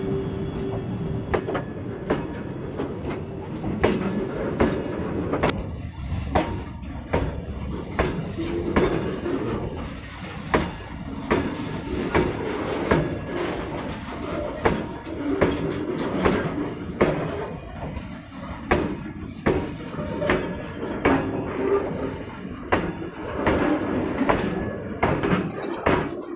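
Loaded freight wagons rolling past close by behind a WAG12B electric locomotive: a steady rumble of wheels on rail, with repeated sharp knocks and clanks at uneven spacing as the wheels cross rail joints. A steady hum stops about a second in.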